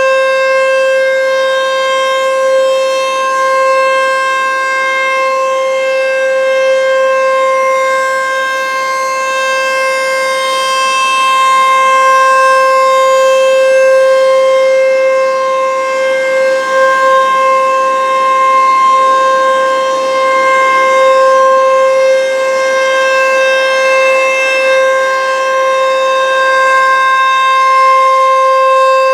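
ASC T-135 AC/DC outdoor warning siren sounding a steady tone, its pitch holding level, swelling and easing slightly in loudness.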